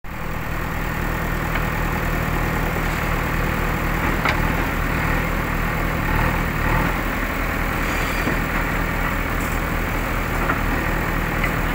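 Komatsu PC130 excavator's diesel engine running steadily as the machine tracks up onto a flatbed truck, with a few short sharp clicks over it.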